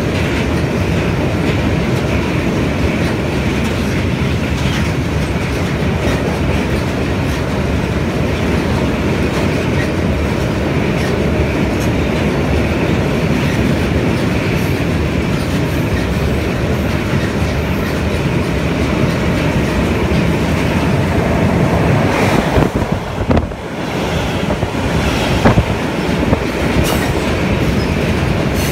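Long freight train of bogie hopper wagons rolling past at close range over a steel truss railway bridge: a steady loud rumble with the clickety-clack of wheels over the rail joints. A few sharper clanks stand out near the end.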